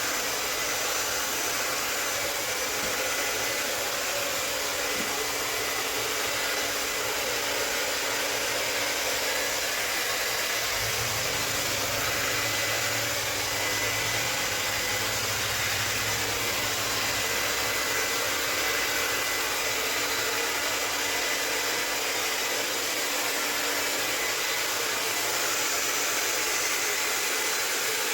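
Handheld hair dryer running steadily, a continuous hiss of blowing air with a faint whine from its fan, used to blow wet acrylic paint across a canvas.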